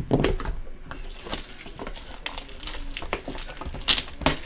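Cardboard trading-card hobby box being handled and opened: papery rustling and scraping, with two sharper crackles near the end.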